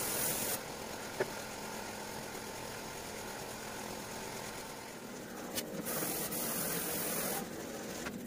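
Air-powered spray gun hissing as it sprays adhesive onto sofa foam: a short burst at the start and a longer one of about a second and a half near the end. A steady machine hum runs underneath, with a sharp click about a second in.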